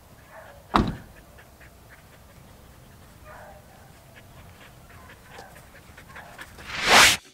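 A dog whines softly a few times while a car door, the Suzuki Jimny's, shuts with a single thump about a second in. Near the end a rising whoosh swells to the loudest point and cuts off.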